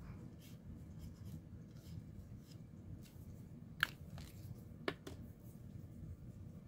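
Black marker pen scratching faintly on watercolor card in short, sketchy strokes, then two sharp clicks about a second apart a little past halfway.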